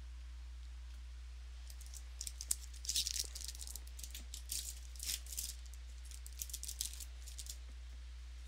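Trading cards being handled and flicked through: a run of quick, crisp rustles and flicks starts about two seconds in and stops shortly before the end, over a steady low hum.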